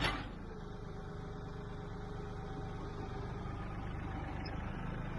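Kioti compact tractor's diesel engine idling steadily, just after a short louder sound at the start.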